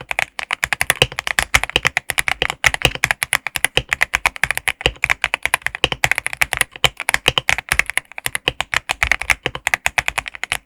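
Fast, continuous typing on a mechanical keyboard fitted with stock Akko CS Starfish switches: a dense run of key clacks at several strokes a second.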